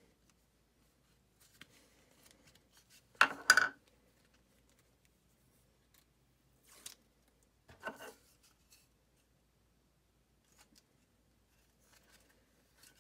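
Paper release liners being peeled off Command adhesive strips and the strips pressed onto a plastic disc: a few short crackling, rustling handling sounds, the loudest about three seconds in, with two smaller ones a few seconds later.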